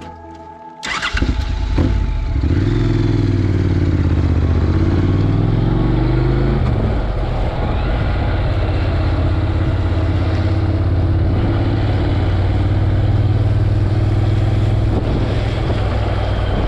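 A snippet of music cuts off about a second in. Then a Honda NC700X motorcycle's 670 cc parallel-twin engine pulls away from a stop, rising in pitch for a few seconds until a gear change, then runs at a steady cruise.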